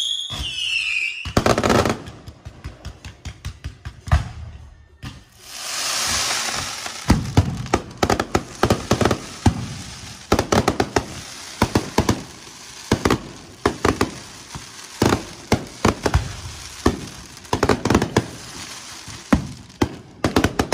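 Fireworks display going off: a falling whistle in the first second, a hiss about six seconds in, then a dense run of sharp bangs and crackling pops.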